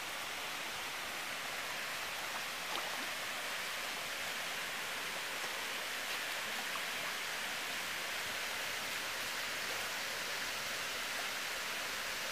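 Steady rushing noise of water in a swimming pool, even and unbroken, with a faint tick about three seconds in.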